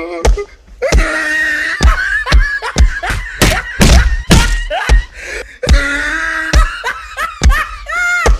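Repeated slaps and thumps, about two a second, from a staged beating, over loud wavering wailing between the blows.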